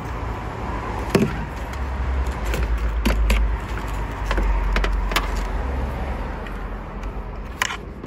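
Scattered sharp clicks and taps of a test probe and hands working at an engine-bay fuse box, a few seconds apart, over a steady low rumble.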